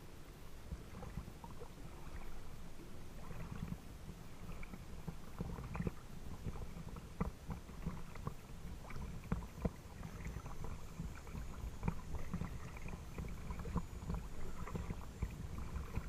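Lake water lapping and splashing against the hull of a small boat, a stream of small irregular splashes over a steady low rumble.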